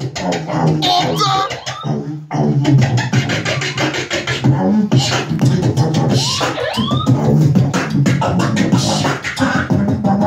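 Several beatboxers performing together through microphones: a steady beat of vocal kick and snare sounds over a low hummed bass line, with a short break about two seconds in and rising-and-falling vocal scratch sweeps around six to seven seconds in.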